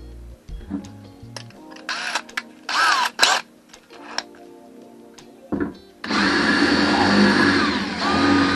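DeWalt cordless drill running, a couple of short bursts about two to three seconds in, then a steady run of about two and a half seconds near the end as it bores a hole with a standard twist bit through the top of a plastic water tank.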